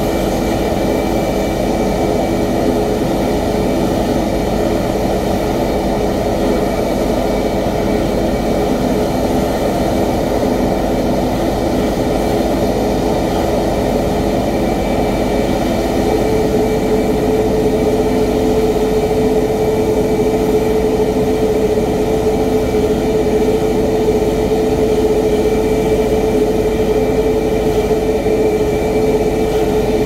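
CFM International LEAP-1B turbofan engines of a Boeing 737 MAX 8 running steadily on the ground after start-up: a constant jet rumble with a steady whine tone that grows stronger about halfway through.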